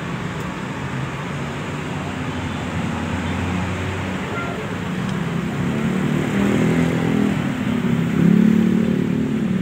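Street traffic passing close by: an intercity coach's engine running as it pulls away, with cars going past. The engine hum grows louder in the second half.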